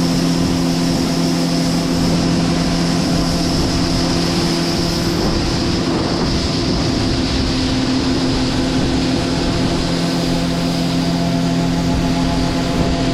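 Combine harvester running steadily at harvest: a loud diesel drone with several steady low tones and a thin high whine. The low tones fade for a few seconds about five seconds in, then come back.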